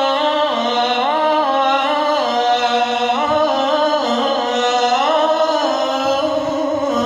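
A single male voice singing an Arabic devotional chant, drawing one word out into a long melismatic line. It holds each note and turns it with small ornamental steps up and down about once a second, with no break for breath.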